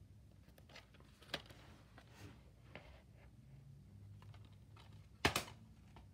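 Plastic DVD case being handled and turned over by hand: scattered light clicks and taps of the case, with one sharp, louder click about five seconds in, over a low steady room hum.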